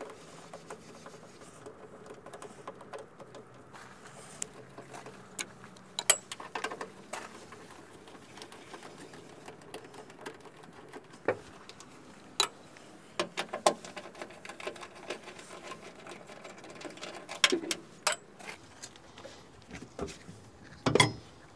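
Hand screwdriver backing out the screws that hold a plastic coolant reservoir, with a run of small clicks and scrapes. Several sharp knocks and clatters come as the tool and the plastic tank are handled, the loudest about six seconds in.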